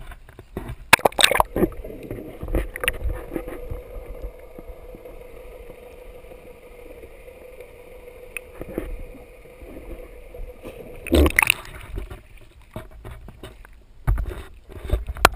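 Sea water splashing over a camera as it plunges under the surface about a second in, then a muffled underwater stretch with a steady hum, then more splashing as it breaks back out near the end, with waves washing over it.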